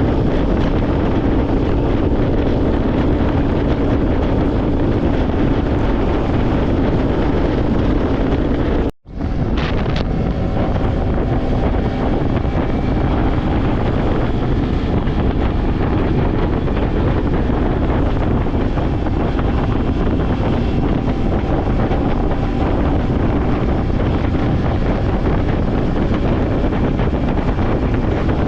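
Steady wind buffeting the microphone over a continuous low drone like a running motor, broken by a brief cut in the sound about nine seconds in.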